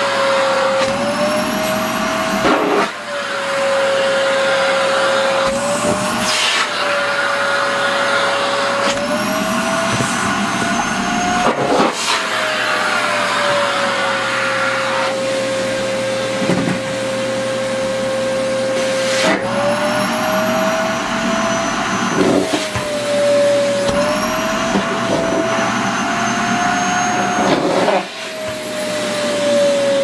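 SHARP EC-KP7F-A vacuum cleaner running at full suction, its motor tone rising and falling in pitch several times as a skirt is sucked onto the nozzle and pulled off it. A few short knocks and fabric rustles come through over the motor.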